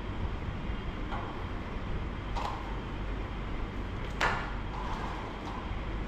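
Cable machine clicking a few times as the rope handle is pulled down and let back up, with one sharper clank about four seconds in, over a steady low hum of room noise.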